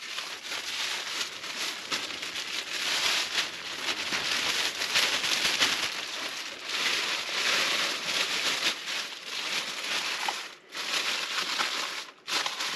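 A thin plastic toilet waste bag crinkling and rustling continuously as it is unfolded by hand and fitted into a portable camping toilet.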